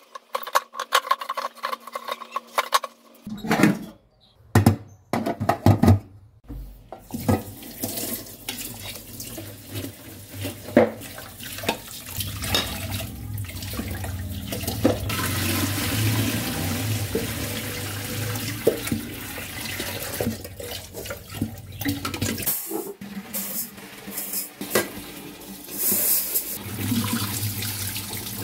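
Kitchen tap running and splashing into an aluminium rice-cooker pot in a stainless steel sink while rice is washed, with the rinse water poured off near the end. The first few seconds hold sharp knocks and clatters of the metal pot being handled.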